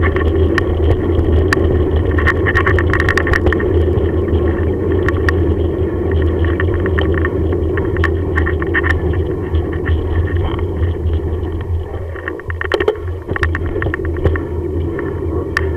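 Bicycle rolling along a paved path, with a steady low rumble from the tyres and bike vibration picked up by a camera mounted on the bike. Frequent sharp rattling clicks run through it, and the rumble eases briefly about twelve seconds in.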